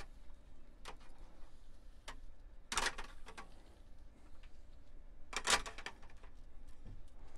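Fish tape and taped-on red and black wires being fed up through a ceiling vent opening: scattered light clicks and ticks, with two louder clatters about three seconds in and about five and a half seconds in.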